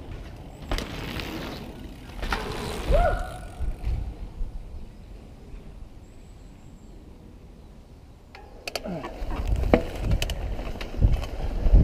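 Mountain bikes passing over a dirt jump: two quick rushes of knobbly tyres on dirt, each with clicks and rattles. About eight seconds in comes the steady rumble of a mountain bike riding a dirt forest trail, with tyre noise on dirt, sharp rattles from chain and frame, and wind on the helmet camera.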